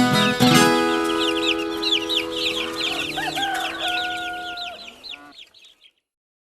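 The last chord of a viola caipira piece rings out and dies away, mixed with farmyard sound effects: rapid high bird chirping throughout and a rooster crowing about three seconds in. Everything fades to silence near the end.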